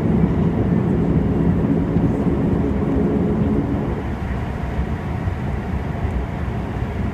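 Fokker 50 cabin noise while rolling on the ground: the turboprop engines and propellers drone over the rumble of the main wheels on the tarmac. About four seconds in the engine note fades and the noise gets a little quieter.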